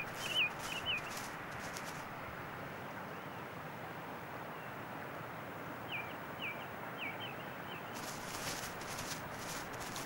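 Mountain hare's quick footfalls on tundra turf in the first two seconds and again near the end, over a steady outdoor hiss. A small bird gives short chirps, three at the start and four about six to seven seconds in.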